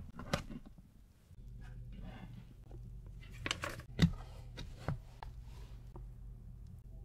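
Hard plastic clacks as a plastic cake dome is handled, then metal knife and cake-lifter blades scraping and tapping as they are slid under the cake, the loudest tap about four seconds in. A low steady hum runs underneath from about a second in.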